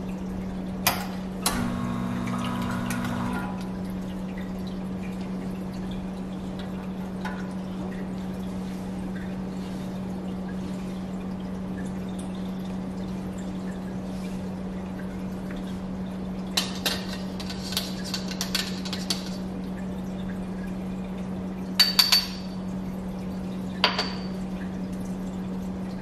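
Espresso-making handling sounds over a steady low hum: a short mechanical run of about two seconds near the start, then sharp, ringing metal clinks of portafilter and tamper handling, a cluster past the middle and the loudest pair a few seconds later.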